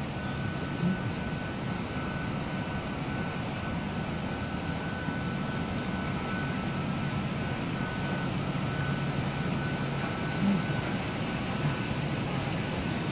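Steady ambient drone of a large underground station concourse: an even mechanical hum and rush of air, with a faint steady high tone over it. Two brief soft thumps, about a second in and near the end.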